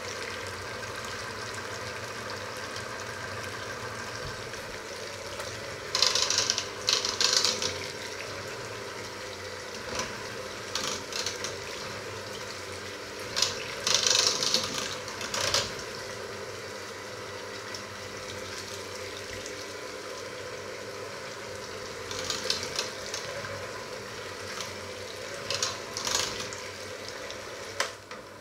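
Electric hand mixer running steadily with its beaters in a steel pot of liquid mixture, the motor giving an even whine, broken by several short bursts of loud rattling as the beaters knock against the pot.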